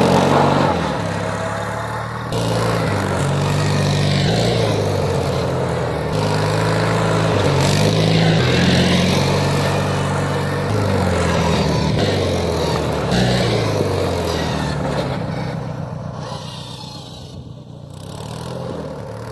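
Off-road LT1000 lawn tractor engine running under way, its pitch rising and falling again and again as the throttle and load change during a test drive. The sound fades somewhat a little before the end and then swells again.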